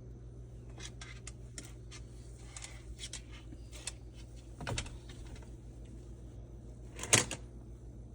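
A scattered series of light clicks and taps, then two louder knocks about five and seven seconds in, the second the loudest, over a steady low hum.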